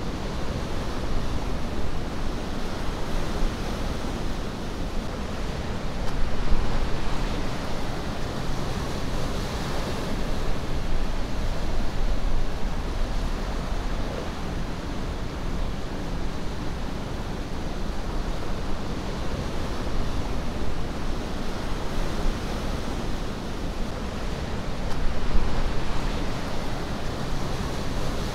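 Steady rush of ocean surf breaking on rocks, swelling louder about six seconds in and again near the end.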